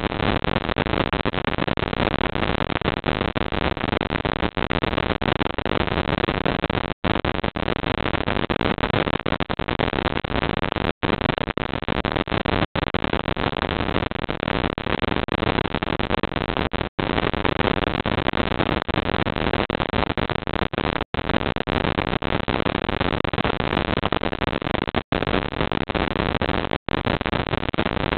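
Steady loud hiss from a security camera's built-in microphone, with no distinct sounds in it, cut by brief silent dropouts several times.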